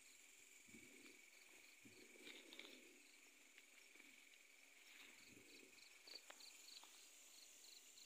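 Faint night insect chorus: crickets trilling steadily, with a repeating pulsed chirp over it and a few soft rustles.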